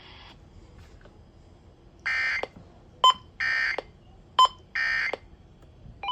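Emergency Alert System end-of-message signal: three short bursts of SAME digital data, each a fraction of a second long and about 1.3 s apart, with two sharp clicks between them.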